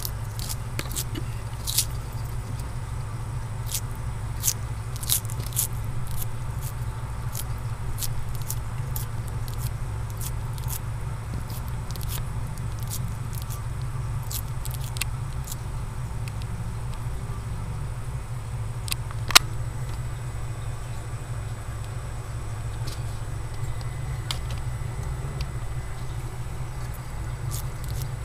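Bearded dragon biting and chewing lettuce: irregular crisp crunches and clicks, with one sharper snap about two-thirds of the way through, over a steady low hum.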